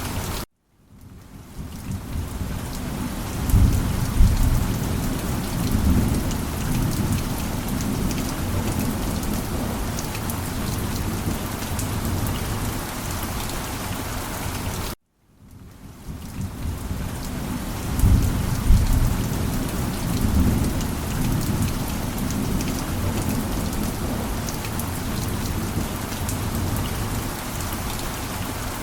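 Steady heavy rain with low rolling thunder, which swells up twice. The loop cuts out abruptly twice, about half a second in and again about halfway through, and each time the rain fades back in.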